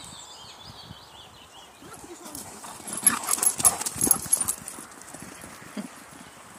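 A Beauceron dog's paws pounding and scuffing on a gravelly dirt track as it runs close past, a quick run of thuds that is loudest from about three to four and a half seconds in.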